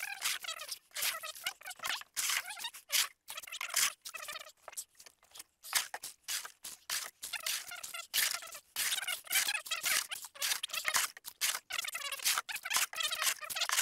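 A plastic scoop scraping along the bottom of a small dinghy's hull as water is bailed out, in quick, irregular scrapes and scoops.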